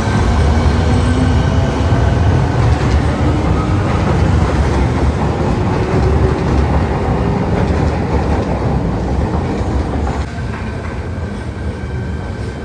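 Fukuoka City Subway 1000N-series train moving along the station track: a steady low rumble with the clatter of wheels over rail joints and thin high tones above it. It grows somewhat quieter from about ten seconds in.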